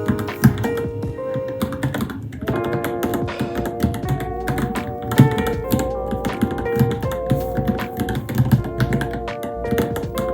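Keystrokes on a Varmilo Minilo mechanical keyboard, a string of irregular clicks as someone types, over background music with held, wavering notes.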